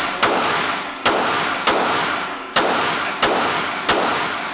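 Handgun fired one shot at a time, six shots evenly paced a little under a second apart. Each shot rings on in a long echo in the enclosed indoor range.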